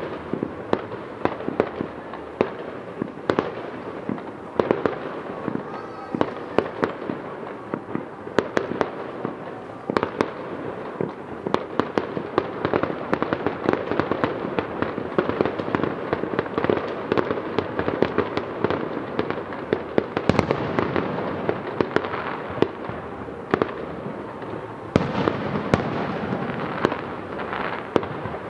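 Fireworks display heard from about 700 m away: a continuous run of shell bursts and crackle with many sharp bangs. It grows denser and louder from about ten seconds in, dips briefly, then swells again near the end.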